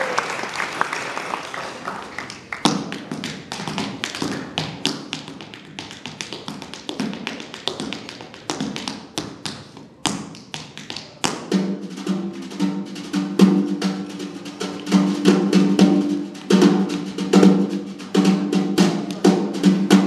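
Tap shoes striking a wooden dance floor in fast rhythmic patterns, traded with a snare drum played with sticks. From about halfway, pulsing strummed chords from a resonator guitar join in under the taps.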